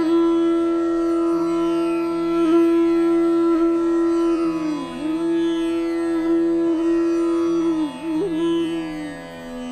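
Instrumental Indian classical-style music: a long-held melody note that slides and bends in pitch at times, over a steady drone.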